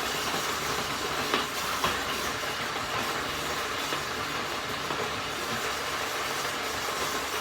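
Food processor running steadily, blending a soup of avocado, vegetables and ice cubes, with a few sharp clicks in the first two seconds.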